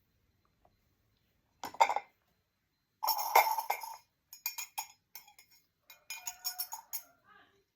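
A utensil clinking against a drinking glass. There is one knock about two seconds in, then a louder ringing clink, followed by quick runs of light clinks.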